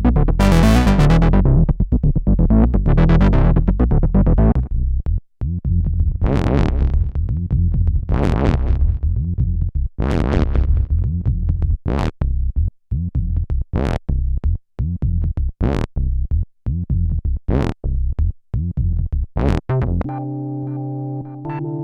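Roland SE-02 analog monosynth playing a heavy bass sequence with bright, short notes that come in a rhythmic pattern, spaced out with gaps in the second half. Near the end it gives way to a steady, held chord-like pad.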